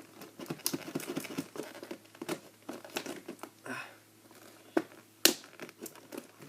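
Plastic and cardboard toy packaging crinkling and rustling with scattered clicks as a toy is worked out of its box, with two sharp snaps about five seconds in.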